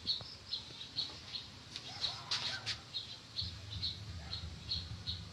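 A bird chirping: short high calls repeating about three times a second, with a few sharp clicks a little past two seconds in.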